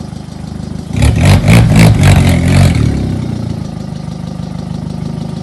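Car engine idling steadily, with a loud burst of revving about a second in that lasts roughly two seconds.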